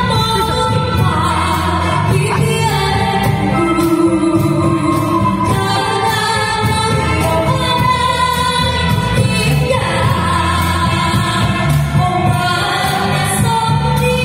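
Song with held sung notes over a steady beat, played through a loudspeaker.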